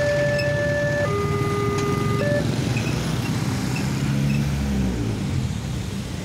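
Railway level-crossing warning alarm sounding a two-tone high-low signal, about a second per tone, then cutting off about two seconds in as the crossing clears. Engines of cars and motorbikes passing over the crossing run throughout.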